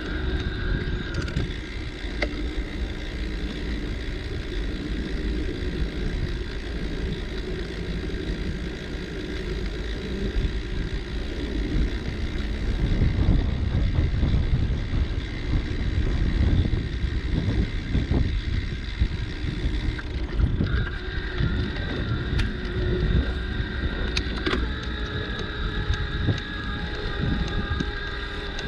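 Riding a bicycle: wind buffeting the microphone over the rumble of tyres on a path, louder for several seconds in the middle, with a faint steady high whine that drops out for a while midway.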